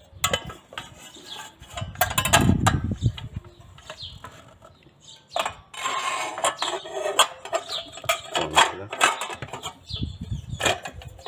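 Metal clinking, clicking and scraping as a circular saw blade, its washer and arbor bolt are handled and fitted onto the saw by hand. The sound is a series of irregular short clinks with brief ringing, and no motor running.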